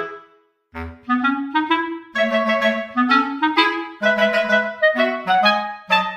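Background music: a light tune played by a clarinet-like woodwind in short, separate notes. It drops out for about half a second near the start, then picks up again.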